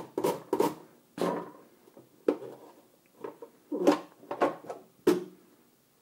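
Carrot being pushed back and forth across a plastic mandoline slicer's steel julienne blade: short rasping strokes, quick and regular at first, then fewer and more spaced, stopping about a second before the end.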